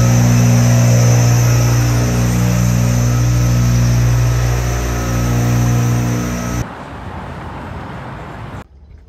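Large truck's engine running steadily at close range, a loud low hum, which cuts off suddenly about two-thirds of the way through to quieter city street noise that drops away again near the end.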